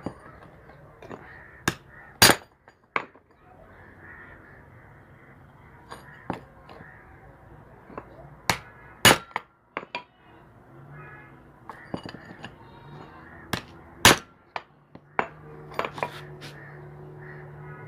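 Sharp, irregular metal-on-metal strikes, several in quick pairs: a hammer or tool knocking at a stuck washing machine motor bearing that will not come off its shaft.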